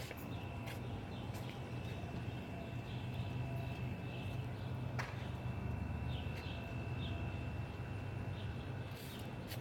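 Birds chirping in short, repeated high calls over a steady low rumble, with a sharp click about halfway through and another near the end.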